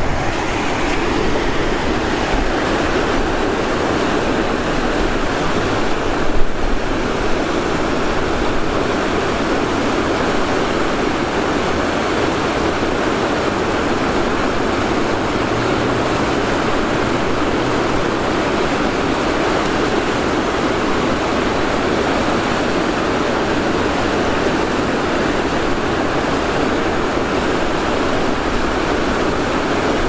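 Steady rush of river water pouring over a low weir. A single brief knock about six seconds in.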